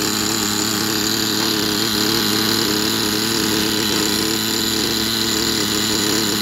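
Alpha .28-class nitro engine of an RC buggy running steadily at a fast idle, its note unchanging; the engine is still being broken in.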